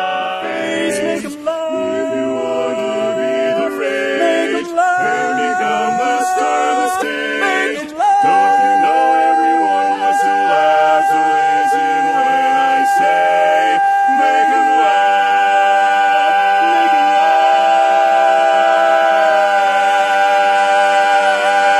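Barbershop quartet of four men singing a cappella in close four-part harmony. For about the first eight seconds the chords move quickly, then the quartet holds one long ringing chord for more than ten seconds.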